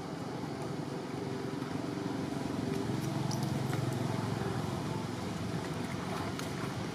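Low engine rumble of a passing motor vehicle, swelling about halfway through and then easing off.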